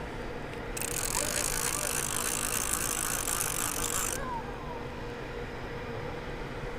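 Okuma Classic XT levelwind baitcasting reel buzzing with a fish on the line, one burst of about three and a half seconds that starts and stops abruptly, over a steady hum.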